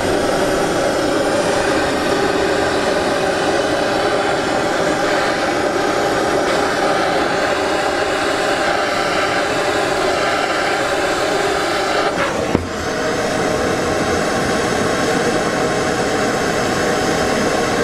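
Handheld Rothenberger gas-cartridge blowtorch burning with a steady hiss as its flame heats a copper pipe and patch for soft soldering. A single sharp click, with a brief dip in the hiss, comes about two-thirds of the way through.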